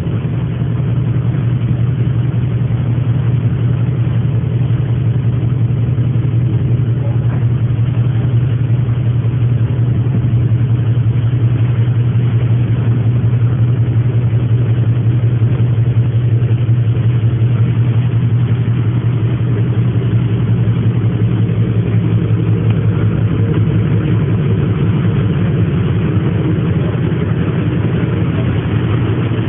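Ferry engine running with a steady, unbroken low drone.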